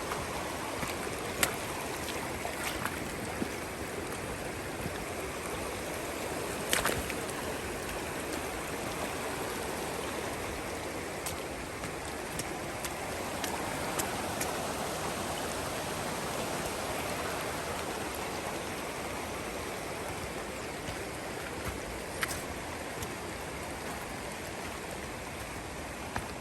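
Stream water flowing with a steady rush, with a few sharp clicks here and there.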